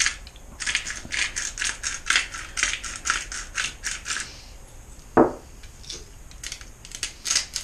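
Hand-twisted salt and pepper grinder grinding over fish as it is seasoned: a run of gritty grinding strokes, about four a second, then a single knock about five seconds in and a shorter burst of grinding near the end.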